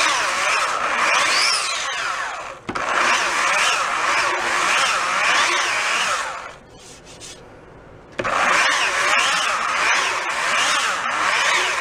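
Ridgid belt sander with a fine-grit belt sanding a wooden snare drum shell, flattening a sawn-off plug flush with the shell. The whine rises and falls as the sander is worked. It stops for about a second and a half in the middle, then runs again.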